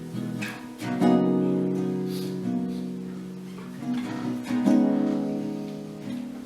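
Acoustic guitar playing a song's introduction: strummed chords left to ring and fade. A new chord is struck about a second in and another near five seconds.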